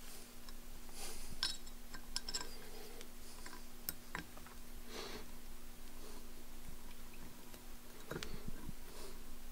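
Small metallic clicks and short scrapes of a hex key turning a cap screw into a tapped hole in a super spacer's cover plate, over a steady low hum.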